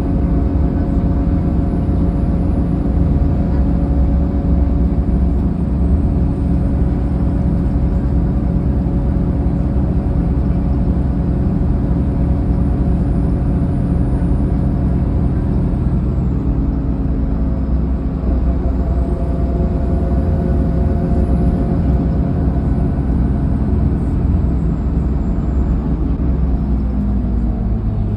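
Inside the cabin of a 2005 Mercedes-Benz OH1728 bus under way: steady engine and ZF automatic transmission drone with a low rumble. The note eases off a little past halfway and falls in pitch near the end as the bus slows.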